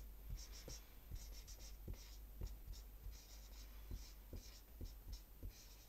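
Dry-erase marker writing letters on a whiteboard: a faint run of short, high-pitched strokes with light taps in between.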